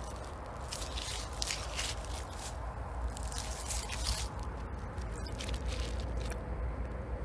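Wet fizzing and squishing of foaming liquid in short, irregular hissy bursts, over a steady low wind rumble on the microphone.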